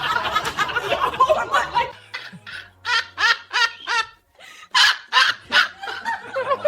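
A person laughing in short, repeated bursts, in a couple of bouts with a brief pause between them.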